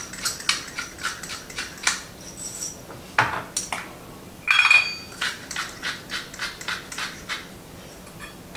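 Salt and pepper being ground into a dressing: a run of rapid dry clicks, with two louder ringing clinks of kitchenware about three and four and a half seconds in.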